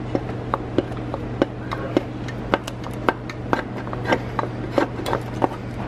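Metal thermostat housing of a BMW E46 M3 engine being twisted and wiggled loose by hand, giving a string of irregular light clicks and knocks, over a steady low hum.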